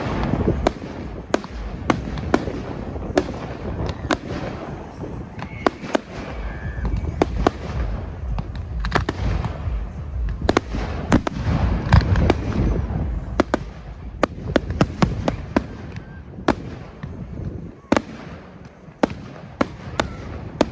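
Fireworks going off: a rapid, irregular series of sharp cracks and bangs, several a second, over a continuous low rumble of bursts.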